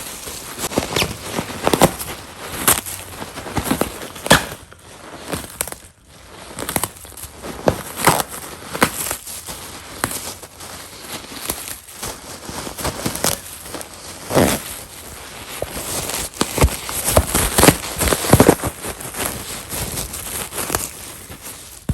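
Plastic packaging air cushions crinkling and crackling as a dog plays with them, in a dense, irregular run of sharp cracks.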